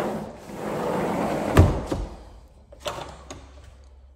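Sliding glass patio door rolling along its track, then hitting its stop with one sharp knock about one and a half seconds in. Two lighter clicks follow a little over a second later.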